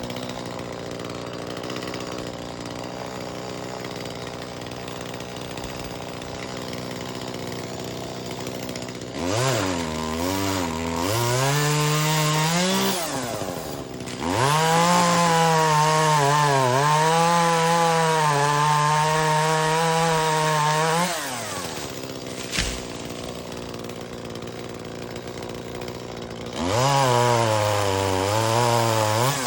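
Gas chainsaw idling, then revving up about nine seconds in and running at full throttle through a cut for several seconds, its pitch sagging and recovering under load as it works through a tree limb. It drops back to idle, with a single sharp click, and revs up again near the end.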